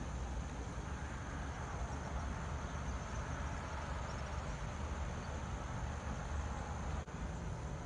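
Steady outdoor ambience: a low rumble with insects shrilling in a steady high tone above it. The sound cuts out for an instant about seven seconds in.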